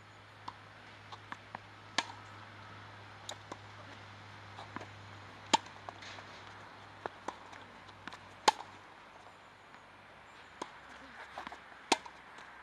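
Tennis rally on a hard court: sharp pops of racquets striking the ball and the ball bouncing, with the loudest strikes, from the nearer racquet, coming about every three seconds and quieter hits and bounces from the far end between them.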